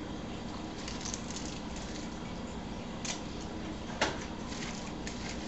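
Faint small clicks and taps over a steady low hum, with one sharper tap about four seconds in.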